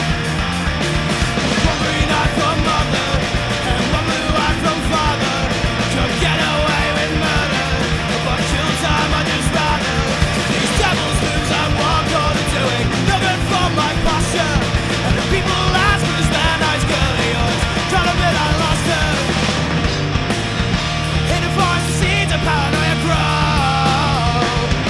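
Pop-punk band playing loud, steady full-band rock: distorted electric guitars and bass over a driving drum beat.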